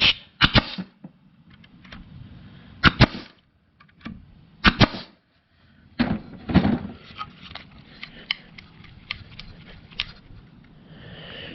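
Banks 18-gauge narrow crown pneumatic stapler firing staples into plywood: several sharp shots a second or two apart, then lighter clicks in the last few seconds.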